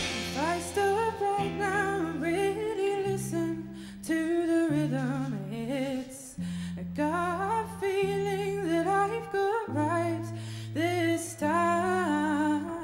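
Live indie band: a woman sings the lead melody over a bass guitar playing one long held note after another. The loud guitar strumming has dropped out in this stretch.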